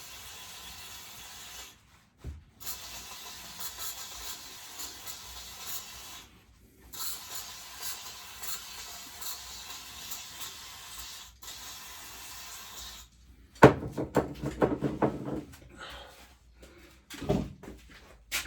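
Compressed-air blow gun hissing in about four long blasts with short breaks, blowing dirt off mower parts. About two thirds of the way through the air stops and there is a sharp knock and clatter, then another thump near the end.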